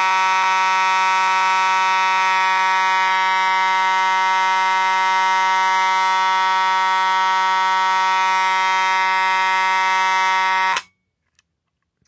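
Simplex 2901-9838 fire alarm horn sounding continuously in one very loud, steady tone, set off by a key-activated pull station. It cuts off abruptly about eleven seconds in, when the station is reset.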